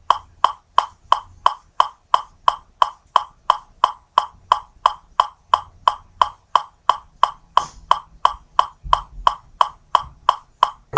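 Metronome clicking at a steady tempo, about three and a half short ticks a second, with no notes played over it.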